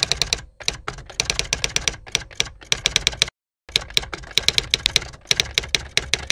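Typing: rapid clicking keystrokes, several a second, in two runs with a brief silent break a little past three seconds in.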